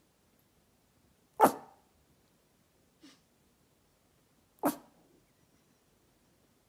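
A Pomeranian making short, sharp sneeze-like huffs: one about a second and a half in and another about three seconds later, with a faint one between them.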